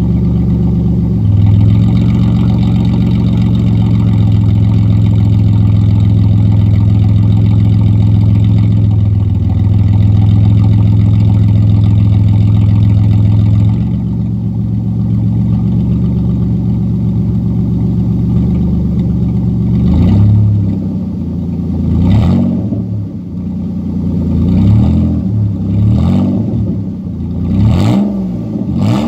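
2007 Dodge Grand Caravan's 3.3-litre V6 through a straight exhaust, muffler and resonator deleted, exiting through a turn-down pipe after the catalytic converter. The engine steps up to a steady raised speed about a second in and holds it for around twelve seconds, then settles back to idle. Over the last nine seconds or so it is revved in a series of quick throttle blips that rise and fall.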